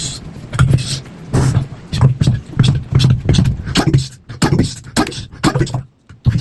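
A person's voice making loud, rhythmic bursts of sound without recognisable words, one every half second to a second, broken by a brief pause near the end.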